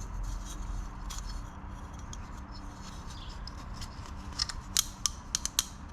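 Small sharp clicks and light rustling from hands handling the plastic cartridge oil filter and its housing cap, pulling the old element off. A quick cluster of crisp clicks comes near the end.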